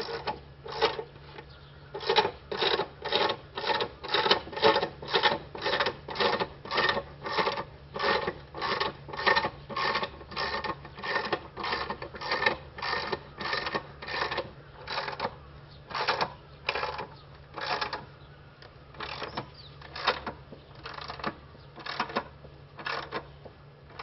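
Motorcycle scissor lift being jacked up by hand under the bike's frame: a run of sharp metallic clicks about two a second, which slows and turns irregular after about fourteen seconds.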